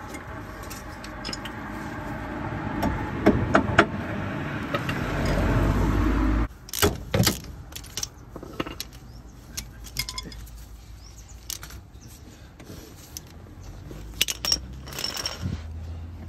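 A steady noisy sound builds in loudness for about six seconds and cuts off suddenly. Metal tools and parts then clink and knock at irregular intervals.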